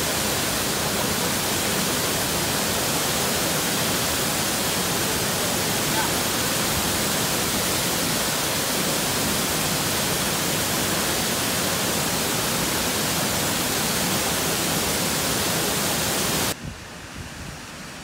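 Aasleagh Falls, a wide waterfall, rushing in a steady, loud, even rush of falling water. Near the end it cuts off abruptly to a much quieter background.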